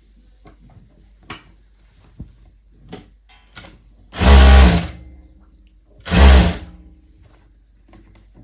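Jack F5 industrial lockstitch sewing machine running at its top speed setting of 40 in two short loud bursts, about four seconds in and again about six seconds in. Light clicks come before them.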